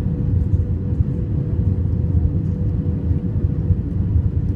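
Cabin noise inside a JetBlue Airbus A320 on approach to land: a steady low rumble of airflow and its IAE V2500 engines, with a steady mid-pitched hum above it.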